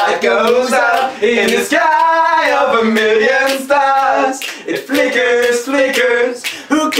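Men singing improvised vocals a cappella, the melody sliding up and down, with sharp clicks from their hands keeping a steady beat.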